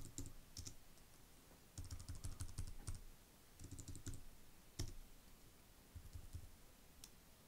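Computer keyboard keystrokes, clicking in several short bursts of quick taps with brief pauses between them, as lines of text are edited.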